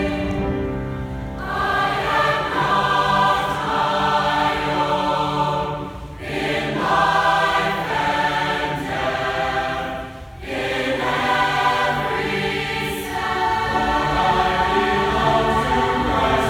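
Large mixed choir singing a hymn in held chords, with short pauses between phrases about six and ten seconds in.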